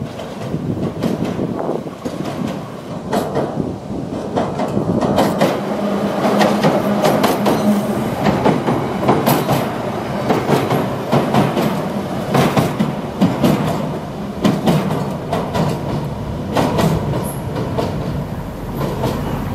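Class 483 electric train, ex-London Underground tube stock, running past on the pier railway, its wheels clicking over the rail joints. The clicking is loudest as the train passes close about halfway through, and it thins out near the end as the train moves away.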